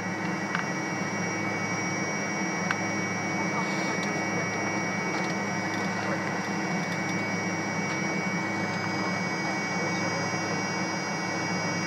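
Steady cabin drone of a Fokker 70 airliner with its Rolls-Royce Tay jet engines running, a low hum under thin steady whine tones, level and unchanging, with a couple of faint clicks.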